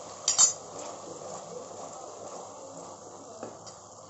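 Sauce sizzling in an aluminium kadhai as cornflour slurry is poured in and stirred with a wooden spoon to thicken it. A short, louder scrape about half a second in.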